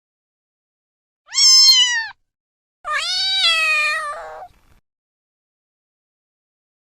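A cat meowing twice. The first meow, a bit over a second in, is short and high. The second is longer and lower, falls slightly in pitch and turns rough at the end.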